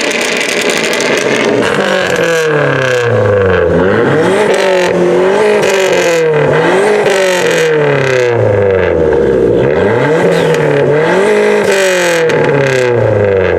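A car engine revved over and over, its pitch climbing and dropping roughly once a second.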